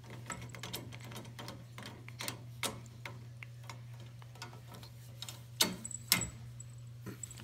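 Maine Coon cat biting and chewing on a metal gate bar: irregular light clicks of teeth against the metal, with two louder knocks a little after the halfway mark.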